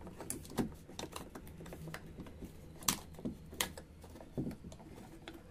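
Scattered small clicks and taps of 35 mm film and its metal take-up spool being handled and slid into the open bottom of a Leica-copy rangefinder body, the sharpest clicks about three seconds in and just after.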